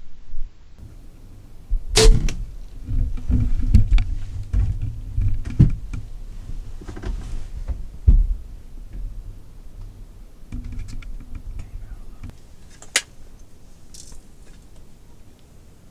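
A bow shot: a sharp snap of the string and arrow about two seconds in, followed by several seconds of irregular rustling and thumps, with another sharp click near thirteen seconds.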